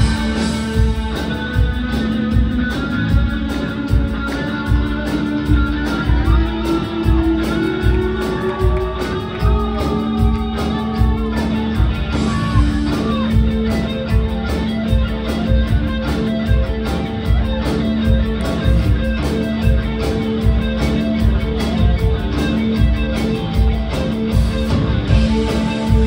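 Live new-wave rock band playing through a PA, heard from the audience: drums keep a steady beat under electric guitar, bass and keyboard synth, with a wavering lead line about six seconds in.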